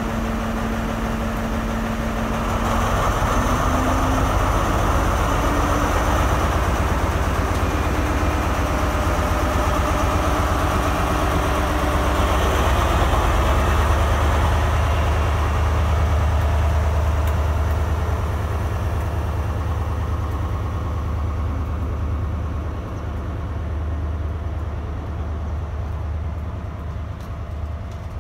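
HST Class 43 power car's diesel engine powering up from idle as the train pulls away, its note stepping up in pitch about three seconds in. The engine fades in the second half as the coaches roll past.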